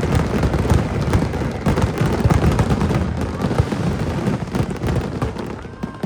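Finale barrage of fireworks: a dense, rapid string of shell bursts and bangs, dying down near the end.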